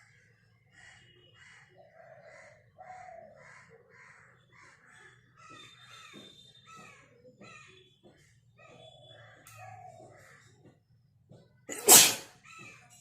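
A woman sneezes once, short and loud, near the end, set off by tickling the inside of her nose with a rolled strip of paper. Birds call over and over in the background before it.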